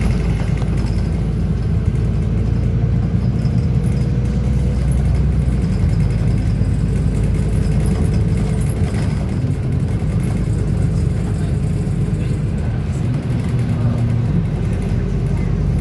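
City bus engine running with a steady low rumble and road noise, heard from inside the bus.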